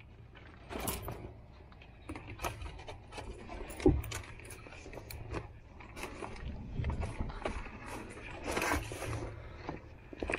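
Fishing gear being loaded into a car's cargo area: a run of knocks, clicks and scrapes with a rustle of plastic bags, the sharpest knock about four seconds in.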